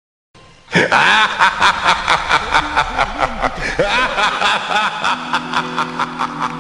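Laughter in quick, evenly repeated bursts, about five a second, starting just under a second in.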